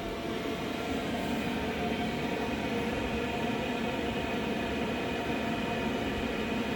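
5 kW 12 V diesel air heater running: a steady drone of its blower and burner, with a few faint steady whining tones over a low rumble.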